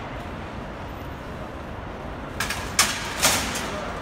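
Hyundai Universe airport coaches idling at a curbside stop: a steady low engine rumble, with three short bursts of sharp noise in the last second and a half.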